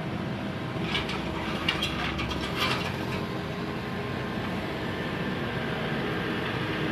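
Excavator's diesel engine running steadily, with a run of sharp clattering knocks about one to three seconds in.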